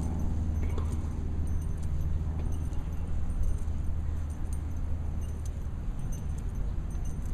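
Light metallic jingling of bracelets shaking as the arms are raised and lowered, as scattered faint clicks over a steady low outdoor rumble.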